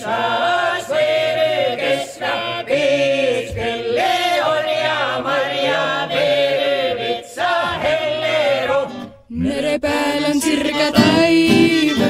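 Setu folk song sung unaccompanied by a group of men in Setu. About nine seconds in the singing stops, and after a short gap a new song with strummed acoustic guitar begins.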